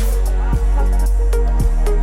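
Electronic music with deep bass and a drum beat.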